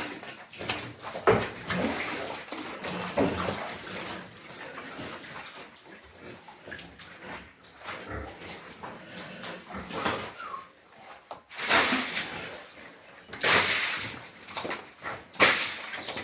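Pigs in a pen making irregular grunting noises, with a few louder, harsher bursts in the last few seconds.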